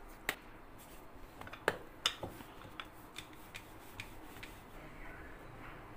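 Light knocks and clicks of hands and kitchenware as pizza dough is handled on a countertop: a few sharper knocks near the start and about two seconds in, then lighter ticks about every half second.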